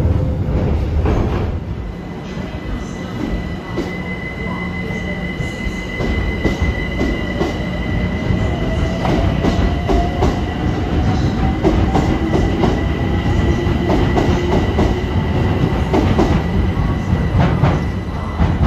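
A train passing, its wheels squealing with a steady high tone and clicking over rail joints.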